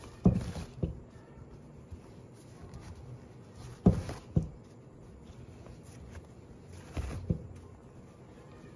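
Handling noise from weaving cut t-shirt strips on a nail-edged frame loom: three pairs of soft thumps about three seconds apart, with faint rustling of fabric between them.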